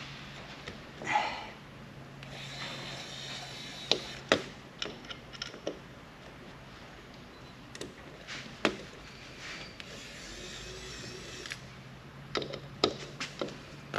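Kaiweets ES20 electric screwdriver running in two stretches of a few seconds each, a faint steady motor whine, as it backs Torx screws out of a hard drive. Small sharp metallic clicks and taps of the bit, screws and drive parts being handled come between the runs.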